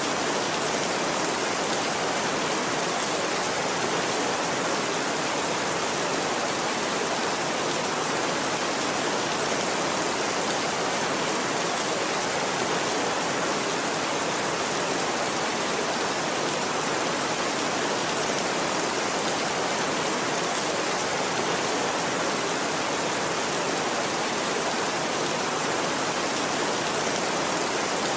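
Steady rain falling, an even hiss that does not change in level.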